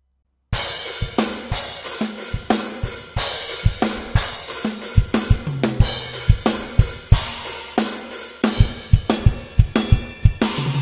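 Raw, unprocessed sampled acoustic drum kit playing a fast beat: kick drum, snare, hi-hats and cymbals, with tom hits near the middle. It starts about half a second in. Unprocessed, the kick sits low and the hi-hats loud in the balance.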